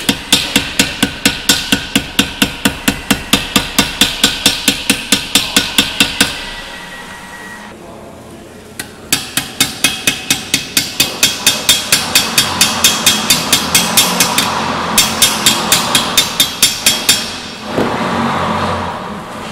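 Hammer tapping down the edge of an aluminium aircraft part over a block, about four sharp, ringing metallic strikes a second. The tapping stops for a few seconds after about six seconds, starts again, and stops near the end. A short rushing noise follows in the last second or two.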